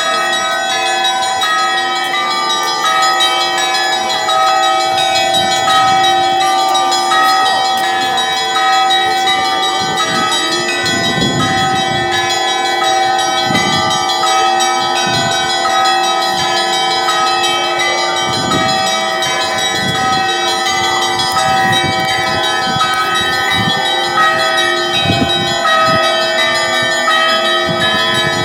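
Orthodox church bells ringing in a dense, continuous peal, many bells sounding over one another. From about ten seconds in, deeper strokes come every second or two beneath the smaller bells.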